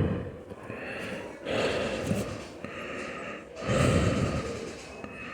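A person breathing hard and gasping in distress, with two loud breaths about two seconds apart, during a dysautonomic attack.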